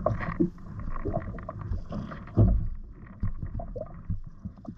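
Sounds of a fishing kayak riding the sea: water slapping the hull and small irregular knocks of gear and rods against it, with one louder thump about two and a half seconds in.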